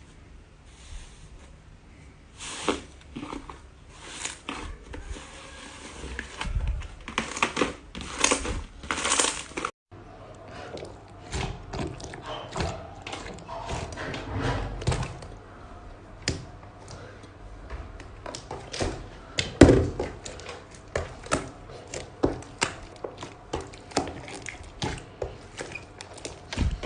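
Slime being squished, pressed and stretched by hand: a dense run of sticky clicks, pops and crackles, with a short break about ten seconds in before more of the same.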